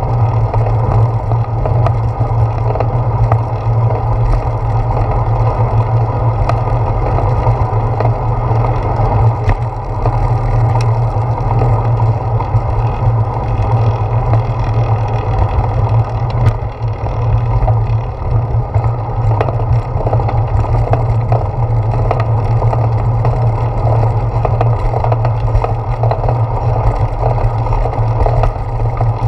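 Steady rumbling noise of a bicycle rolling over pavement, carried through the handlebar mount into a GoPro Hero 4 in its case, with a constant low hum under it and a few small knocks from bumps in the path.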